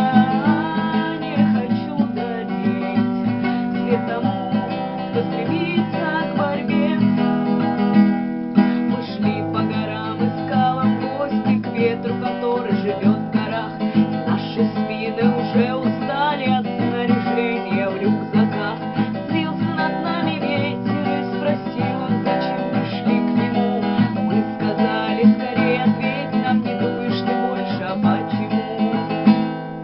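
Music led by an acoustic guitar, strummed and plucked steadily.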